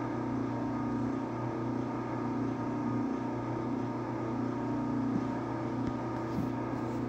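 Steady mechanical hum with several constant tones, like a machine or vehicle running, with a few faint ticks near the end.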